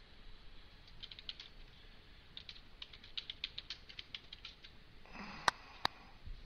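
Computer keyboard being typed on: a quick, uneven run of light key clicks, followed near the end by two louder, sharper clicks.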